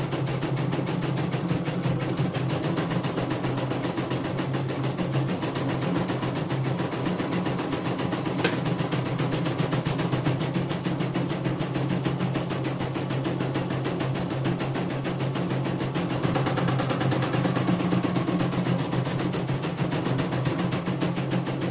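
CNY computerized embroidery machine stitching a test pattern in its hoop: a rapid, even clatter of needle strokes over the steady hum of its motor, with one sharp tick about eight seconds in, a little louder from about sixteen seconds on.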